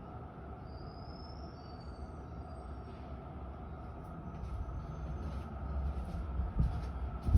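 Low rumbling from the flat above, carried through the ceiling, swelling over the last few seconds, then two heavy thumps close together near the end, the second the loudest.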